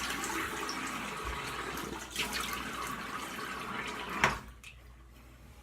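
Water running from a bathroom sink tap while the face is rinsed after a shave. About four seconds in there is a sharp knock, and the running water stops.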